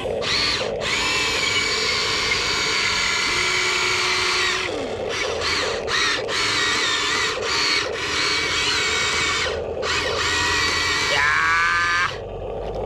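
Huina 1593 RC excavator's small electric motors whining as the boom, arm and bucket are worked. The whine starts and stops in short bursts, shifting in pitch, and winds up in pitch near the end.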